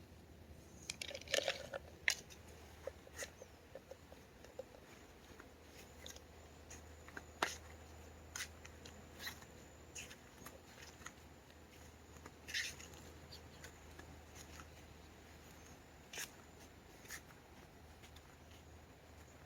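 Faint, scattered small clicks and crackles, a quick cluster of them about a second in and then one every second or so, over a low steady hum.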